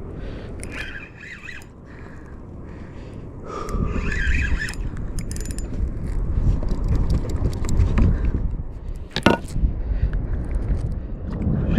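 Fishing reel being cranked to bring up a fish, with clicks and scraping, over the rumble of wind on the microphone that grows much louder about four seconds in. One sharp knock comes near the end.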